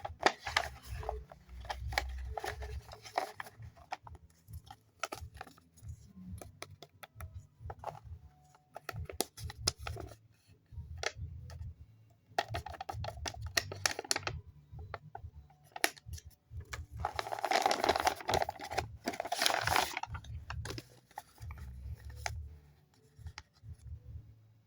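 A paper blind bag being handled, crinkled and torn open: many small clicks and rustles, with a louder run of crinkling near the end.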